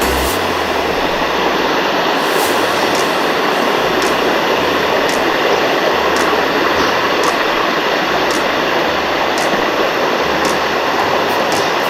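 Steady roar of a waterfall's rushing water, loud and unbroken.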